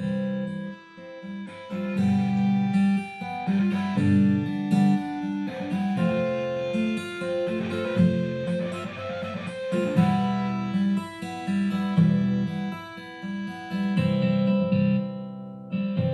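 Guitar-led instrumental music played from a smartphone through the Ashton AT1000S powered PC speaker's built-in amplifier. The highs and mids come through acceptably but the bass sounds clearly lacking.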